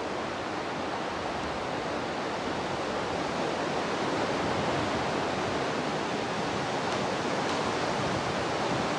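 Steady rushing noise with no distinct events, slightly louder in the middle.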